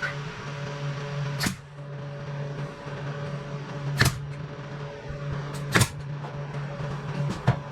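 Nail gun firing nails one at a time to fasten trim, four sharp shots spaced a couple of seconds apart, over a steady hum.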